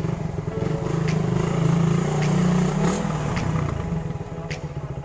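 Motorcycle engine running as the bike is ridden at low speed. The engine note rises a little and grows louder, then eases off about three seconds in.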